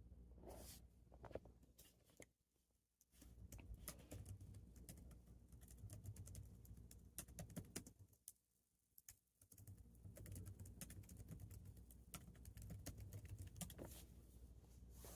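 Faint, irregular tapping and clicking over a low steady hum, which drops out almost completely twice for about a second.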